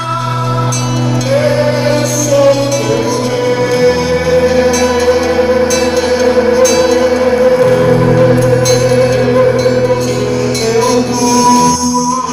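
Amplified live gospel music: a singer over a band, with long held keyboard chords and bass notes.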